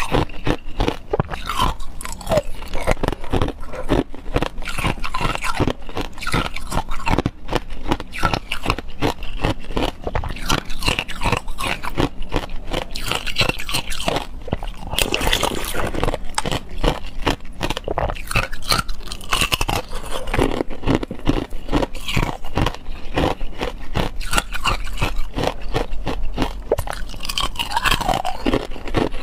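Hard clear ice being bitten and crunched between the teeth close to a clip-on microphone: a dense, continuous run of sharp cracks and crunches.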